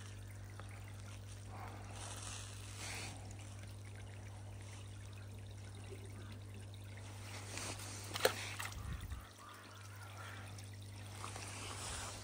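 Pond water trickling and bubbling where aeration stirs the surface, over a steady low hum. A sharp click about eight seconds in.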